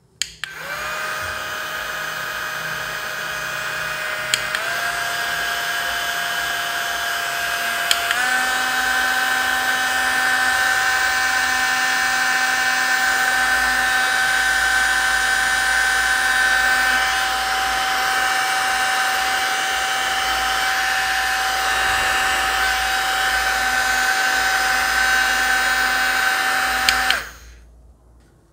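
Handheld rechargeable mini fan switched on with a click and running with a steady high whine. Its pitch steps up twice, each time with a click, as it is switched through its three speeds. It cuts off suddenly near the end.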